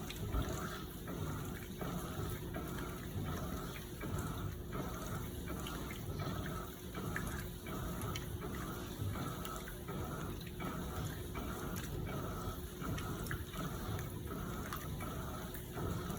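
Electrolux LPE16 top-load washing machine running with water inside: water rushing and sloshing in the tub in a regular pulse about twice a second, over a steady hum.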